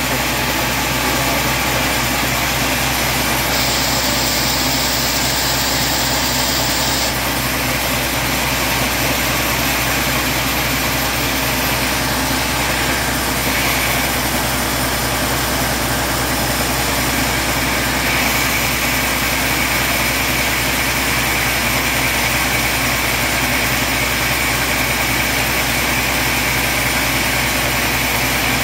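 Large sawmill band saw running and cutting lengthwise through a teak slab: a steady, loud mechanical noise. A brighter hiss joins for a few seconds near the start, and a thin high whine comes in past the middle.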